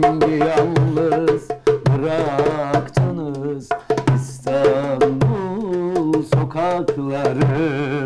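A man singing a Turkish folk song unaccompanied except for his own darbuka (goblet drum), the voice held in long, wavering notes over a steady pattern of drum strokes.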